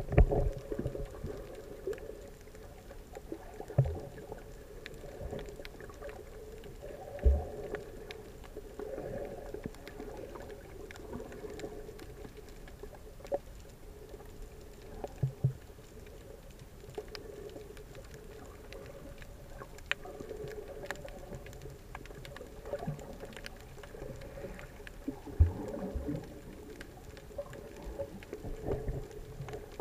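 Muffled underwater sound from a camera in a waterproof housing: water swishing and gurgling as it moves, with scattered faint clicks and a few low thumps.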